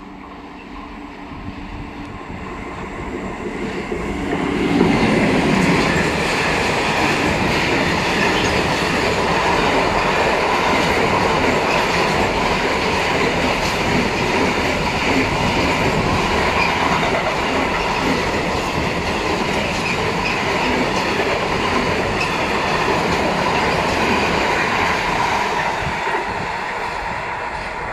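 A container freight train approaching and passing close by. The sound builds to its loudest about five seconds in as the locomotive goes by, then the container wagons roll past steadily, easing off slightly near the end.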